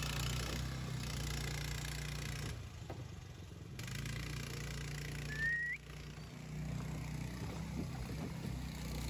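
Long-tail mud motor on a small flat-bottom boat running, a low steady engine drone that dips briefly a couple of times. A short rising chirp sounds about five and a half seconds in.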